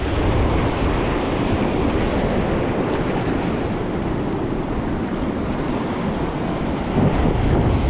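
Wind buffeting the microphone over a steady wash of sea surf, swelling briefly near the end.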